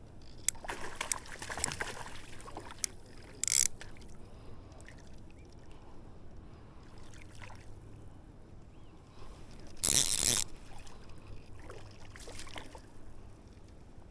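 Water splashing in several short, irregular bursts, the loudest about ten seconds in, over a low steady background of flowing water.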